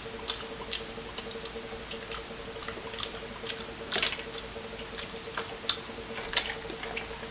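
Close-up wet eating sounds of sauce-covered seafood: scattered short lip smacks, squelches and clicks as it is handled and chewed, with the loudest smacks about two, four and six seconds in. A faint steady hum runs underneath.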